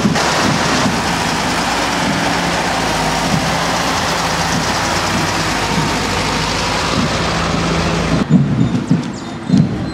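Engines of military vehicles running as they pass in a parade: a steady low hum under a heavy, even hiss. About eight seconds in the sound cuts off suddenly and gives way to a few low thumps.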